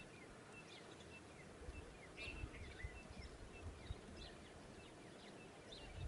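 Faint, repeated chirps of small birds over a quiet background, with a few soft low thuds.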